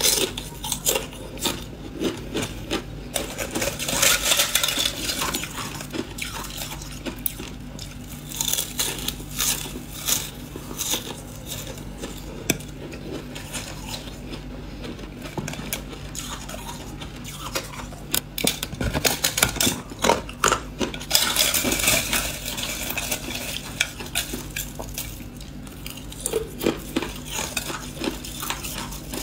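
Thin shards of clear ice being crunched and chewed, with many sharp clicks and crackles and louder spells of crackling a few seconds in and again past the middle. Thin pieces of the ice shell snap in the fingers near the end. A steady low hum runs underneath.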